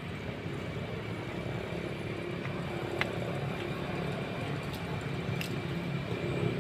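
Steady low engine hum with a faint high steady whine above it, and a single small click about three seconds in.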